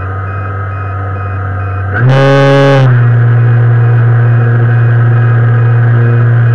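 Brushless electric motor and propeller of an E-flite Air Tractor RC plane, heard through a camera mounted on the plane, running at cruise. About two seconds in the throttle goes up: the drone gets louder and slightly higher, with a brief harsh whine for under a second, then holds steady at the higher setting.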